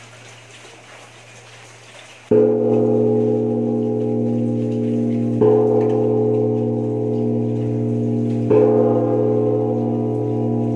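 A newly cast 400 kg bronze Huế temple bell struck three times about three seconds apart, each stroke sudden and then ringing on in a low, many-toned hum that is still sounding when the next stroke lands.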